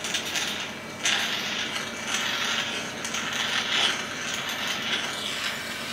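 Suction aspirator running with a steady hum while the catheter draws thick phlegm from a child's airway, the air hissing through in irregular swells about a second long.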